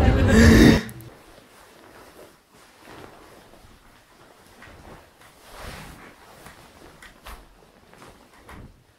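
A loud, dense sound cuts off abruptly under a second in. Then there is quiet room tone with soft rustling of bedding and a few light knocks, as a person stirs and gets up out of bed.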